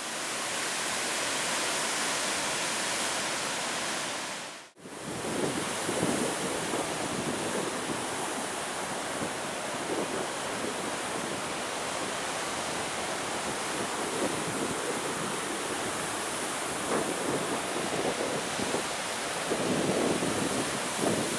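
Sea surf and gusting wind on the microphone, a steady rushing noise. It cuts out for an instant about five seconds in, and low rumbles swell near the end.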